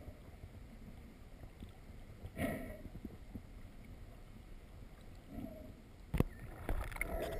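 Underwater sound picked up by a camera held below the surface: a low, steady water noise with a short muffled burst about two and a half seconds in, a fainter one later, and a run of sharp clicks near the end.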